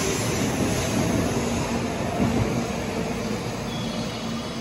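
Shinkansen bullet train pulling out of the station alongside the platform: a steady running noise that fades as the train draws away, with a faint low hum in the second half.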